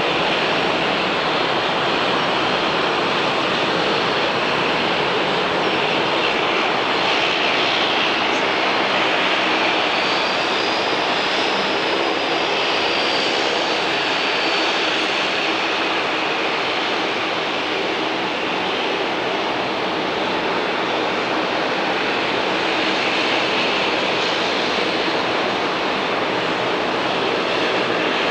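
Jet airliner engines running with a steady, even roar, and a faint high whine that rises and falls in the middle.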